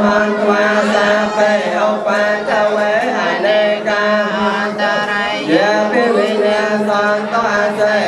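Theravada Buddhist monk chanting a funeral mantra into a microphone, amplified over a loudspeaker, his voice running on without break. A steady low hum sits underneath.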